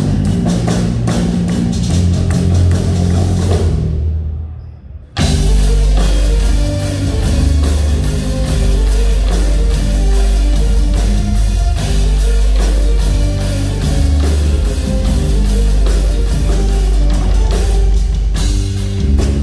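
Rock band music with drum kit and electric guitar at a loud, steady beat; the music cuts out about four seconds in and comes back in full about a second later.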